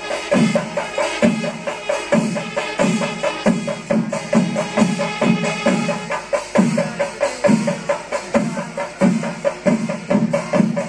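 Kerala temple festival percussion ensemble (chenda melam): chenda drums beaten in a steady rhythm of about two heavy strokes a second, with a sustained pitched tone ringing over them.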